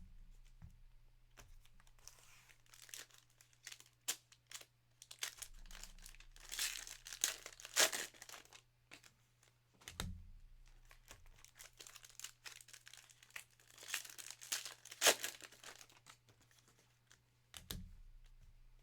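Trading card pack wrappers being torn open and crinkled by hand, in irregular bursts of crackling, loudest about a third of the way in and again past the middle, over a faint steady electrical hum.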